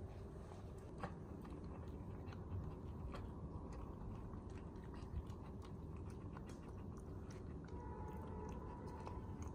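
Pets chewing and crunching fried chicken, a scatter of small crunches and clicks over a low steady hum.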